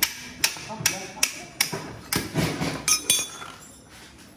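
Sharp metal strikes of a hand tool on a motorcycle engine being taken apart, about two to three a second and ringing brightly, stopping about three seconds in.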